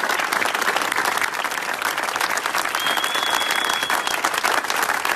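A group of film crew members applauding: dense, steady clapping from many hands. A thin high steady tone sounds for about a second near the middle.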